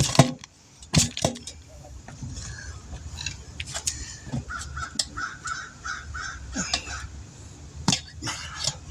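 A bird cawing in a quick run of about six calls a little after the middle, among a few sharp metallic clanks from tire-changing work at the start, about a second in, and near the end.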